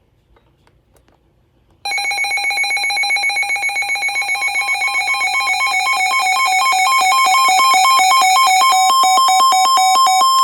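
Electronic emergency-alert alarm: a loud, rapidly pulsing beep that alternates between two pitches, starting about two seconds in and building slightly in loudness.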